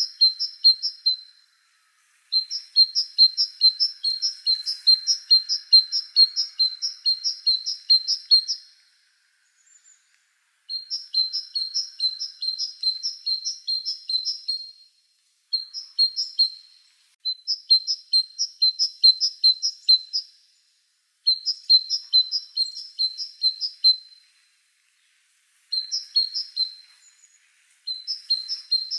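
A songbird chirping in runs of quick, evenly repeated high notes, about three a second. Each run lasts a few seconds, with short pauses between them.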